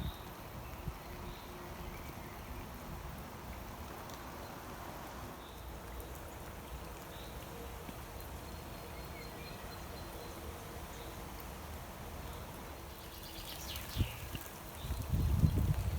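Steady rain hiss with faint, short bird chirps, a brief burst of birdsong near the end, then loud low thumps and rumbling in the last second.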